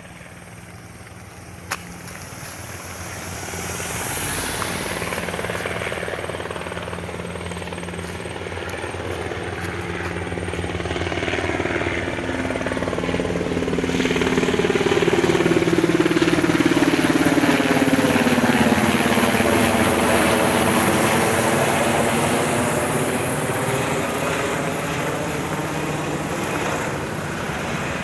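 Two Sikorsky S-70i Black Hawk helicopters flying past: the rotor and turbine noise grows louder over the first dozen seconds, peaks about 15 to 20 seconds in with its pitch falling as they pass, then fades. A single sharp click sounds just under two seconds in.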